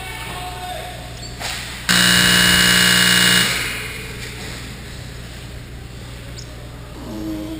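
Ice rink scoreboard buzzer sounding once for about a second and a half: a loud, steady horn tone that starts abruptly and dies away, marking a change of shift on the ice. Around it is the steady hum of the arena with faint voices.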